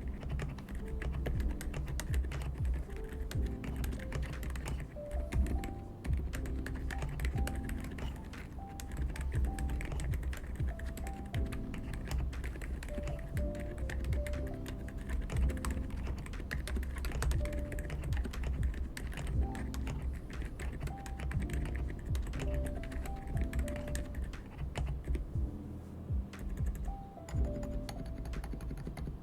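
Continuous typing on a GMK67 mechanical keyboard with unlubed Outemu Silent White switches and Matcha keycaps, the case lined with an extra layer of foam. The keystrokes are a dense, irregular patter of damped clicks, over background music.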